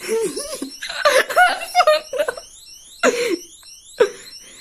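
A person laughing in several wavering bursts. Behind the laughter an electronic alarm sounds faintly as a fast run of short rising chirps, starting about a second and a half in.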